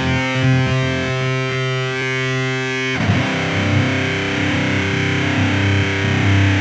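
Electric guitar played through a Boss GX-100 multi-effects patch voiced like the Miku Stomp pedal, with fuzz, harmonizer and vibrato. It gives a sustained, synthetic-sounding held note, and about three seconds in it moves to new wavering notes.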